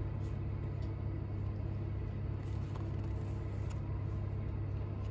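Steady low electrical hum from the running vending machines, with a few faint taps from a small cardboard box being handled.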